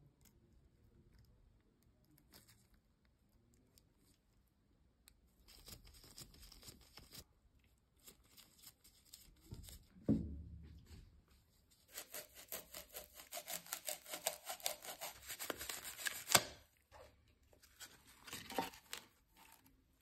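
Hand handling of a metal lamp base and its wiring parts. A low thump comes about halfway through, then several seconds of rapid scratchy strokes that end in a sharp click.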